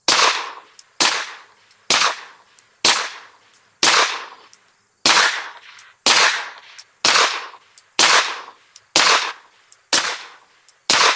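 Twelve suppressed 9mm pistol shots from a Beretta APX A1 Tactical fitted with a Rugged Obsidian 45 suppressor, firing 115-grain Federal American Eagle ammunition at a steady pace of about one shot a second. Each shot is a sharp crack with a short decaying tail.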